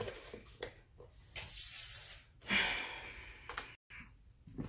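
Handling noise from a nail gel kit's packaging: a plastic storage case and a cardboard card being set into the box, giving brief rustling and scraping sounds, the longest for about a second, with a few light knocks.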